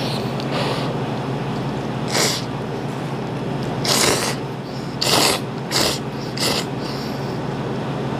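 A man slurping instant ramen noodles in several quick, noisy slurps, about six in all, over a steady low hum.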